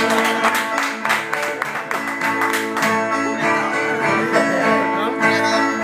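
Two Brazilian violas dinâmicas (steel-strung violas with metal resonator covers) strummed together in a rhythmic instrumental interlude between the sung stanzas of a repente, the viola 'baião' that carries the duel from one verse to the next.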